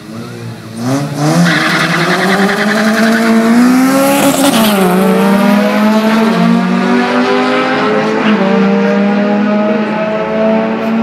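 Two import cars launching off a drag strip start line at full throttle. The engines rev up from about a second in and fall in pitch at each gear shift, three shifts in all, as the cars pull away down the track.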